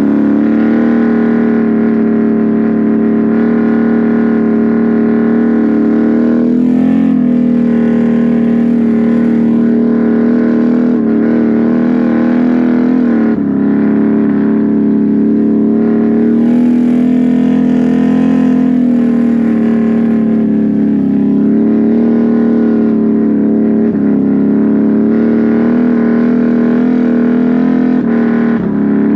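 Can-Am Renegade 1000 XMR's V-twin engine through a loud aftermarket SLG exhaust, held at high revs as the ATV churns through mud. The pitch sags briefly and climbs back several times, about a quarter of the way in, near the middle and again later, as the throttle is eased and reapplied.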